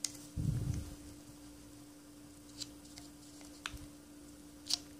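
Small clicks and handling knocks from the metal T.Mi.Z.35 mine fuze as it is pressed down by hand to line up its safety pin: a click and a dull thump near the start, then a few faint sharp clicks spaced out, the last near the end. A faint steady hum lies underneath.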